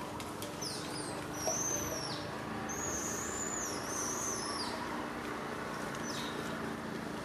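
A songbird singing high whistled phrases that rise and fall, from about half a second in until about five seconds, over a steady outdoor hiss.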